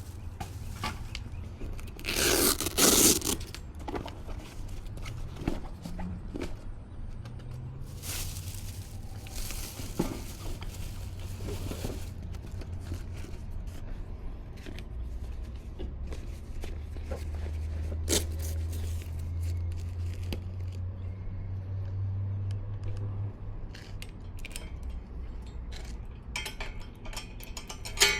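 1994 GT Timberline mountain bike ridden along, heard from the rider's action camera: a steady low rumble of tyres and wind on the microphone, with scattered clicks and rattles. Louder noisy stretches come about two seconds in and again from about eight to twelve seconds in.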